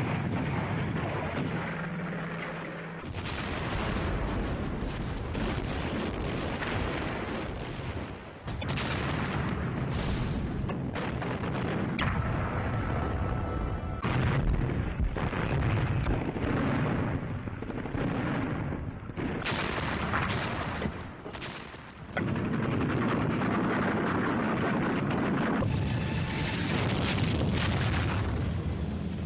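Battle sounds: dense gunfire mixed with booming explosions, going on without a break. The mix changes abruptly several times, as between separate recordings.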